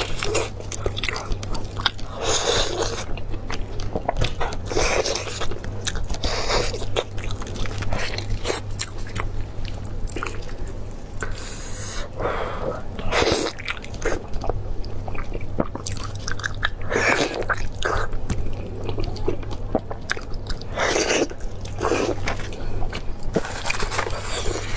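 Biting and chewing of braised meat on the bone, close to the microphone, coming in irregular bursts over a steady low hum.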